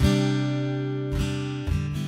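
Background music: acoustic guitar strumming chords, three strokes that ring on between them.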